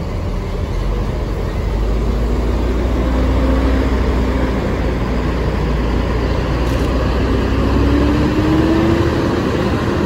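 A large coach's engine rumbling close by as the bus drives slowly through the terminal. It swells in the first few seconds and fades near the end, with a faint whine rising in pitch over the last couple of seconds.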